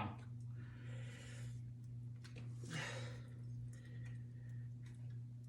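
Faint breaths and a few small clicks over a steady low hum.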